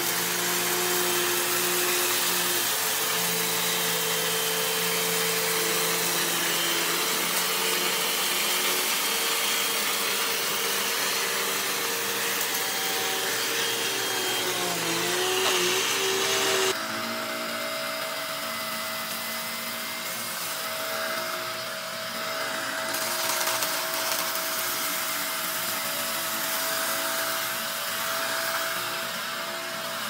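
Hoover Elite Rewind upright vacuum running steadily over sand-strewn carpet, its motor hum carrying several steady tones. About 17 s in it cuts abruptly to a second upright vacuum, the Shark Navigator, running a little quieter with one high steady tone.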